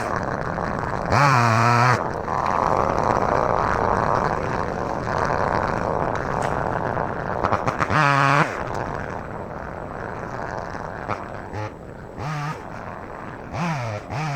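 Chainsaw running through cuts, its engine note rising and falling in short revving bursts about a second in, about eight seconds in and several times near the end, with a steadier stretch of running and cutting between.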